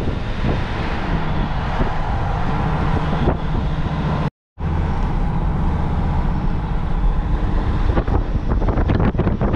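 Motorhome driving along a road: steady engine and road rumble with wind buffeting the microphone. It cuts out completely for a moment about halfway through, and the gusting grows choppier near the end.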